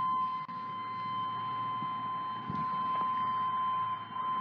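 A steady, unbroken high electronic tone, like a warning buzzer or beep, held at one pitch.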